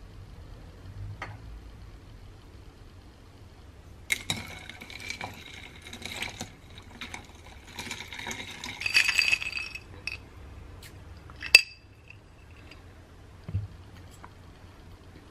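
A straw stirring ice cubes and a milky iced drink in a drinking glass, a run of ringing clinks against the glass for about six seconds, then one sharper clink.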